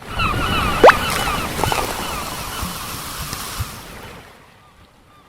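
A rushing, surf-like noise with repeated short chirps over it and one quick rising whistle about a second in, fading out near the end.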